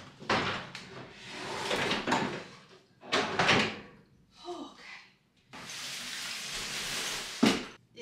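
Handling noise as a new countertop microwave is lifted from its cardboard box and set in place: rustling and scraping, a steady rustle for a couple of seconds near the end, then one sharp thunk just before the end.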